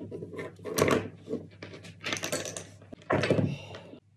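Handling noises on a wooden desk: short scrapes, rustles and light taps as multimeter test leads are held to a small battery's contacts.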